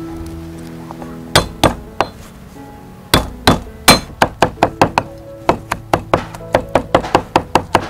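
Meat cleaver chopping garlic cloves on a thick round wooden chopping block: a few separate heavy chops, then a steady run of about four chops a second from about four seconds in.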